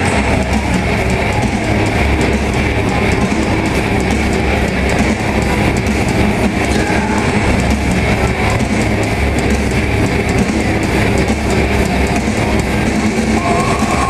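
Loud rock music with electric guitar playing over a ballpark's public-address system, the closer's entrance music.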